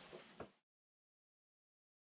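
Near silence: faint background noise and a single small click fade out about half a second in, leaving dead silence.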